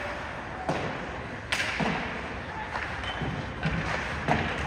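Ice hockey play along the rink boards: a sharp knock under a second in and another about a second later, then lighter knocks and scraping of sticks, skates and puck.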